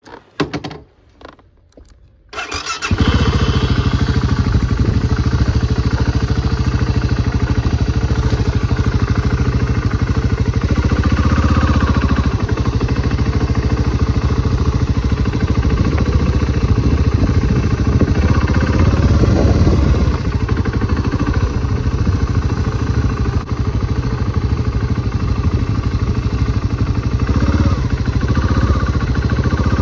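Husqvarna TR650's single-cylinder engine starting up about two and a half seconds in after a few faint clicks, then running steadily with small rises and dips in pitch.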